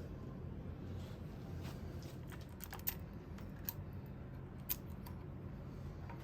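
Scattered light clicks and ticks of hand tools and parts being handled while a Nissan VQ35DE V6 engine is taken apart, with a few sharper clicks a few seconds in, over a steady low hum.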